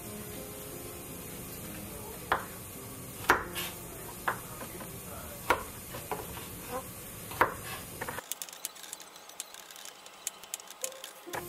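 Chef's knife cutting garlic cloves on a bamboo cutting board: single sharp knocks of the blade on the board about a second apart, then, for the last three seconds or so, fast rapid chopping as the garlic is minced. Soft background music plays under the single cuts and stops when the fast chopping starts.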